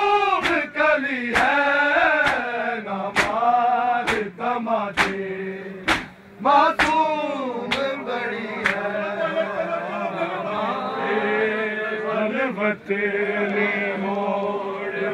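A group of men chanting a noha (Urdu mourning lament) together. For about the first nine seconds sharp collective slaps keep time roughly once a second, typical of matam chest-beating that accompanies the lament. After that the chanting goes on as a long held line with almost no slaps.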